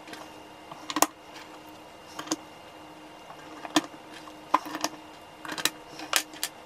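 Small push-button modules on circuit boards clicking and tapping as they are picked from a pile and dropped into cut-outs in an MDF panel. The light clicks are scattered, with several close together in the second half.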